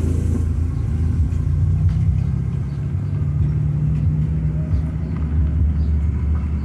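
Volkswagen Saveiro pickup driving, its engine and road noise making a steady low drone with a held engine note.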